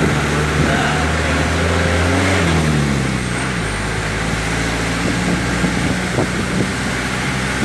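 The engine of a vehicle running as it drives along, heard on board over road and wind noise, with its pitch shifting about two to three seconds in.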